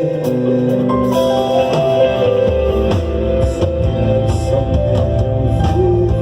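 Live band playing an instrumental passage of a worship song: sustained keyboard and electric guitar notes over drums, with the bass and low end filling in about two and a half seconds in.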